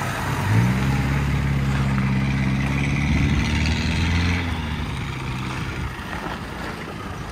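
Toyota Prado 150's engine pulling steadily under load as the 4WD crawls over rutted dirt with its diff locks engaged. The note comes in with a slight rise about half a second in, holds, then fades from about five seconds as the vehicle moves away.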